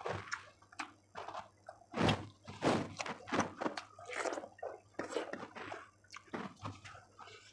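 Close-miked eating sounds of chicken curry: chewing, lip-smacking and mouth clicks coming in quick, irregular bursts.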